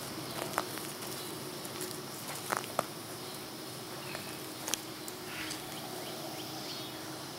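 Steady outdoor background with a faint constant hum and four short sharp clicks, two of them close together near the middle.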